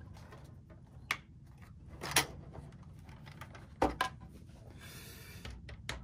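Sharp plastic clicks and knocks from handling and prying at a Roborock S50 robot vacuum's plastic housing, four of them, then a brief rubbing scrape near the end.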